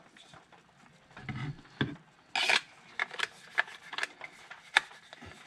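A fixed-blade knife scraping as it is slid into its hard plastic sheath, then a run of short sharp clicks, the sharpest near the end, as it snaps into place.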